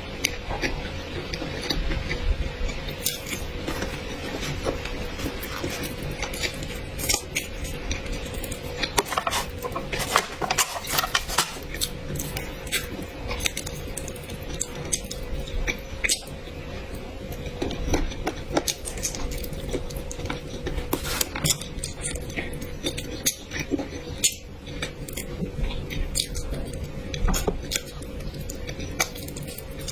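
Close-miked eating: chewing and biting, with frequent short clicks of a utensil against a dish, over a faint steady hum.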